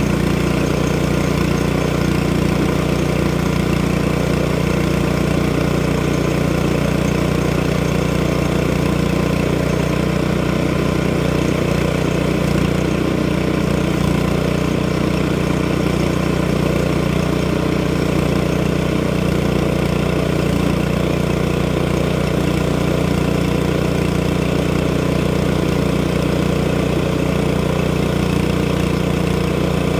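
Small gasoline engine of a portable circular-blade sawmill running steadily at constant speed, a loud even hum with no change in pitch or level.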